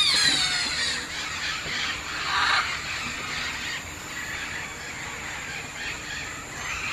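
Tropical forest ambience with bird calls: a falling, squealing call right at the start and a harsher, rasping call about two and a half seconds in, over a steady background hiss of the forest.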